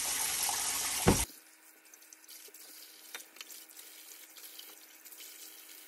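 Kitchen faucet running cold water into a sink over a raw turkey. About a second in there is a sharp knock, and the running water stops abruptly, leaving only faint clicks and a low steady hum.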